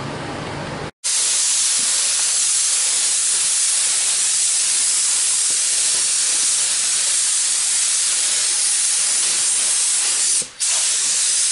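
Compressed-air paint spray gun with a gravity-feed cup hissing steadily as it sprays paint onto a masked truck body panel. It stops for a moment near the end when the trigger is let go, then starts again. Before it starts, about a second in, a duller steady noise cuts off abruptly.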